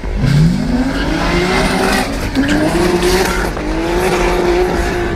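Drag car launching hard from the start line, its engine revving up steeply and pulling through the gears, with upshifts about two seconds and three and a half seconds in.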